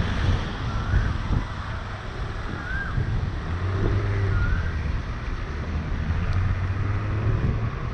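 Wind rushing over the microphone of an action camera on a moving vehicle, with tyre noise on a wet road and a steady low engine hum. A few short chirps come through four times.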